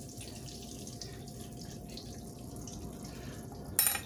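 Floured chicken breasts frying in hot butter and oil in a stainless skillet, a steady sizzle. About four seconds in there is a brief, sharp, louder hiss or clatter.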